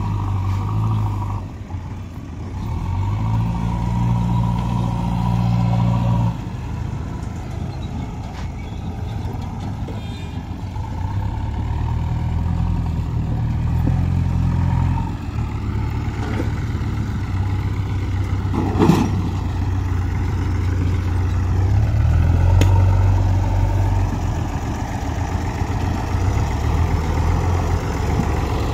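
Diesel engines of a farm tractor and a JCB backhoe loader running, with the engine pitch stepping up and down as they are worked; the tractor is hauling a trolley loaded with sand. A single sharp knock sounds about two thirds of the way through.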